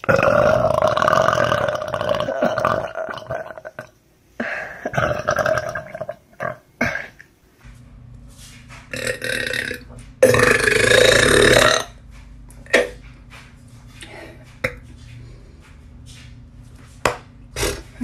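Women belching: two long belches in the first six seconds, then, after a change of recording, two long loud belches back to back about nine to twelve seconds in, followed by a few short ones.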